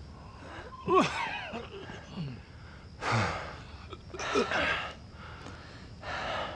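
A man panting and gasping hard for breath, about five heavy heaving breaths, several with a short falling groan in the voice: he is exhausted from carrying a grown man on his back.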